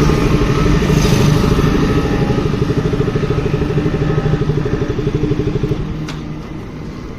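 Motorcycle engine running close by, loud at first, then dropping away about six seconds in.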